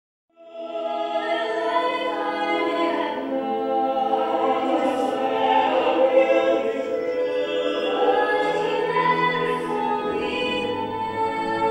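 Musical-theatre singing: several voices holding long notes together over instrumental accompaniment, starting abruptly about half a second in.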